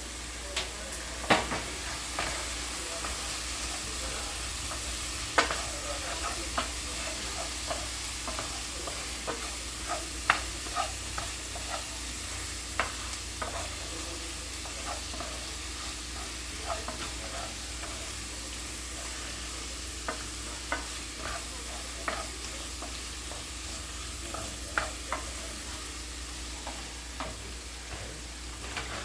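Food frying in a pan with a steady sizzle, and a utensil stirring it with irregular clicks and taps against the pan.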